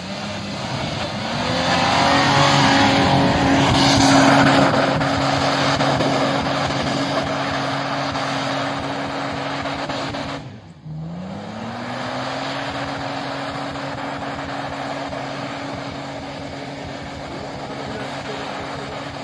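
Toyota FJ Cruiser's 4.0-litre V6 revved hard and held at high, steady revs while its tyres spin and fling snow, with a rush of tyre and snow noise loudest in the first few seconds. Halfway through the sound drops out briefly, then the revs climb again and hold.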